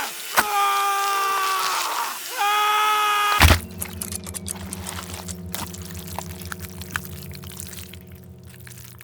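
Two long held pitched wails, cut off about three and a half seconds in by one loud wet crash. After it a low pulsing hum carries on, with scattered drips and small liquid splashes.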